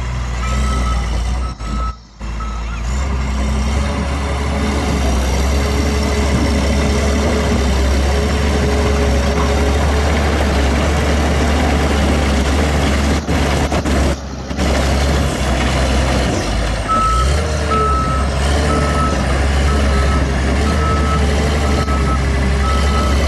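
Bulldozer's diesel engine running with a steady low rumble while its reverse alarm beeps, a little over once a second, at the start and again from about two-thirds of the way in, the sign that the machine is backing up. The sound drops out briefly twice.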